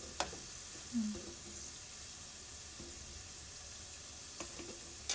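Meatballs deep-frying in a pot of oil: a steady hiss of bubbling oil, with a couple of light clicks from the stirring utensil.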